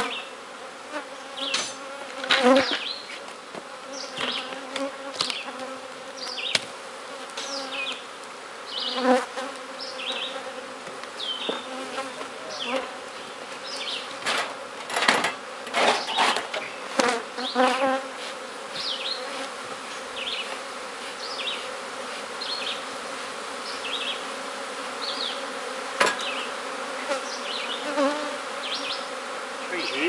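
Honeybees buzzing in a dense cloud around opened hives: a steady, even hum. Sharp knocks and clatters from the hive work come and go, busiest around the middle.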